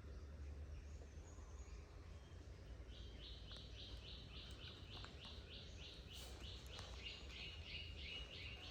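A high chirping call repeated rapidly and evenly, about five chirps a second, starting about three seconds in, over a low steady hum.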